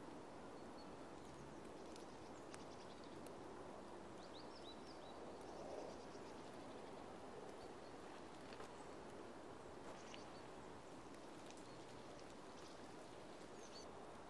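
Faint outdoor ambience: a steady low hiss with a few faint, short, high bird chirps, a small cluster about four to five seconds in and again near the end.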